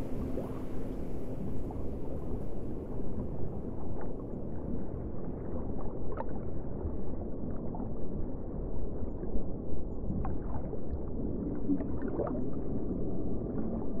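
Deep underwater ocean rumble with a few brief whale calls gliding up and down.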